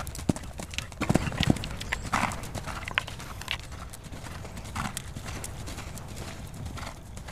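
Hoofbeats of a cantering horse on sand arena footing: a run of dull, irregular thuds.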